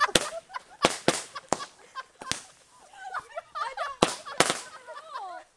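Ground-launched consumer firework going off: about seven sharp bangs at uneven intervals, two close together about a second in and two more about four seconds in.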